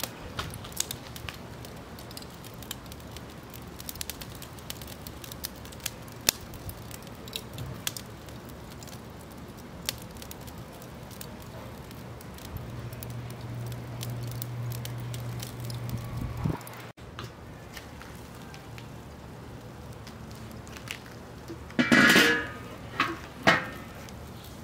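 Lump hardwood charcoal crackling in an open kettle grill, with irregular sharp pops over a low steady background. A louder burst of sound comes a couple of seconds before the end.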